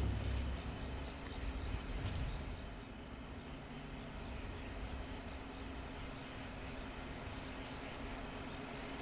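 Insects chirping in a steady, evenly pulsing high trill, with a low steady hum beneath.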